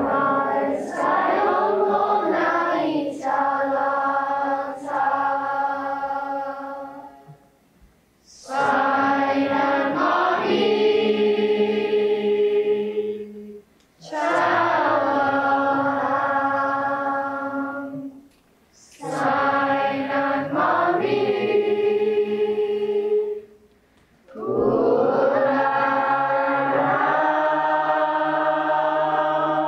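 A group of voices chanting a Chamorro song in five long, held phrases, each a few seconds long and separated by brief pauses for breath.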